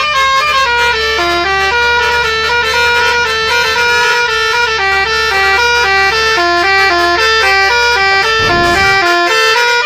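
Bus 'telolet' air horn playing a tune in quick stepped notes, over the low hum of the bus.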